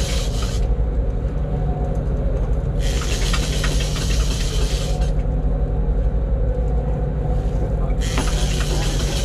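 Boat engine running with a steady low drone, broken by three bursts of hiss near the start, in the middle and near the end.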